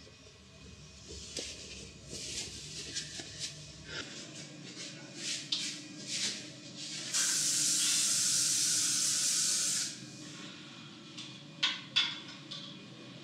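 Clothes rustling as a shirt is taken down and handled. Then an aerosol spray can gives one steady hiss of about two and a half seconds, the loudest sound here, and two sharp clicks follow near the end.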